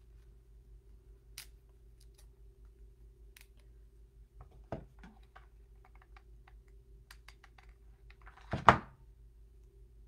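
Scattered light clicks and taps from hands working with leaves, sticks and a hot glue gun at a table, with one louder knock near the end.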